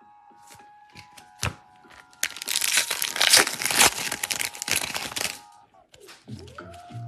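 Foil wrapper of a Donruss football card pack torn open and crumpled: a sharp snap about one and a half seconds in, then a loud crackling rustle for about three seconds.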